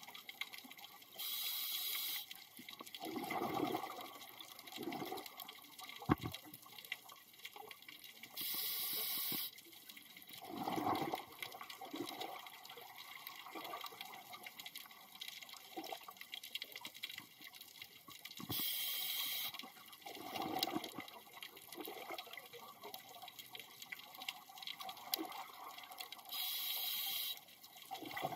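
Scuba diver breathing through a regulator underwater: four hissing inhales about eight seconds apart, each followed by a gurgling rush of exhaled bubbles.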